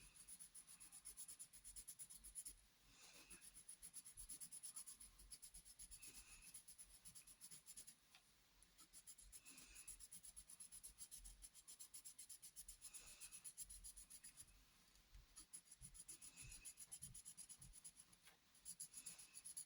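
Rainbow multi-colour pencil scribbling rapidly back and forth on paper, faint, in several spells of a few seconds each with short breaks between.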